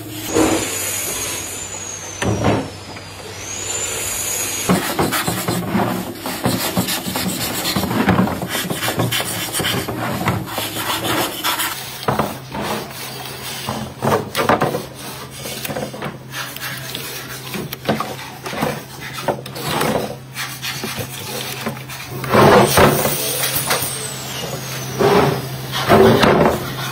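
Wood being worked by hand: a hand brace's bit boring into a wooden carrom board with a rasping scrape, then strokes of rubbing across the board's surface, with a few high squeaks.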